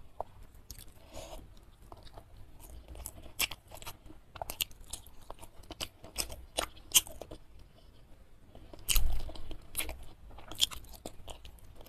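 Close-miked chewing of a rice meal eaten by hand: crisp crunches and wet mouth clicks, with a louder crunch about nine seconds in.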